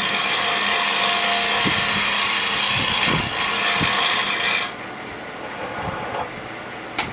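A carbide-insert turning tool cutting a wood block spinning on a lathe, making a loud, steady, rough scraping as the block is roughed round. The cut stops about four and a half seconds in, leaving the quieter running of the lathe, and there is a sharp click near the end.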